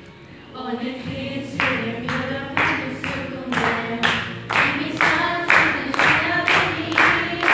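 A group of young voices singing a song together, joined about a second and a half in by steady hand claps about twice a second.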